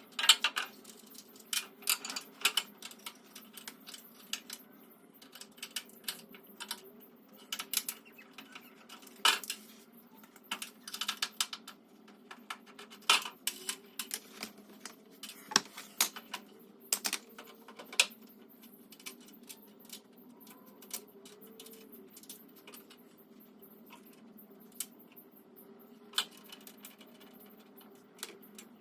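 Irregular metallic clicks and clinks of hand tools and bolts being handled while caster wheels are fitted to a steel tool cart, with a faint steady hum underneath.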